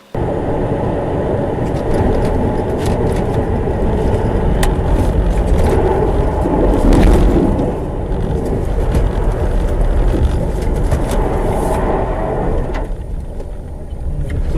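Road noise of a car driving, as a dashcam picks it up: a steady, loud rumble of tyres and engine with scattered small clicks and knocks, easing off near the end.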